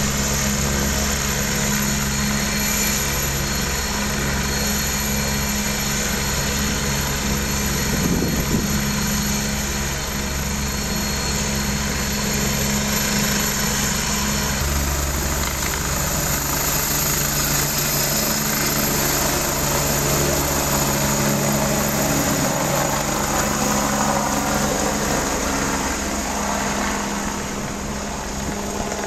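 Helicopter's turbine engines and rotor running: a steady whine over a low throb. The helicopter turns on the pad, then lifts off and climbs away near the end.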